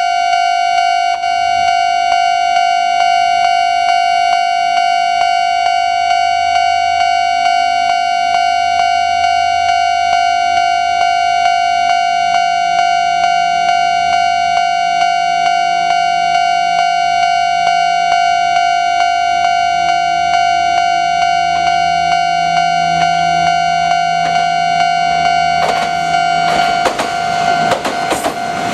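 Japanese railway level-crossing warning bell ringing steadily, an electronic ding at one fixed pitch repeating in a quick even rhythm. About three seconds before the end a Kintetsu train reaches the crossing and its wheels clatter over the rails under the bell.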